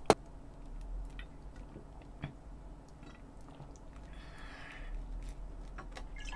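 Two sharp glass clicks in a toast at the start, then quiet swallowing and small mouth clicks as beer is drunk straight from a glass bottle, with a soft hiss of liquid about four seconds in.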